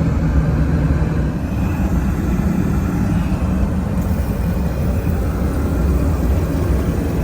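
Steady in-flight cabin noise of a Boeing 737-800: an even, low rumble of engines and airflow, heard from inside the aircraft's lavatory.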